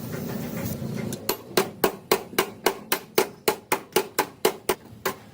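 A hammer striking in a steady rhythm, about four blows a second, starting about a second in once a steady hum stops.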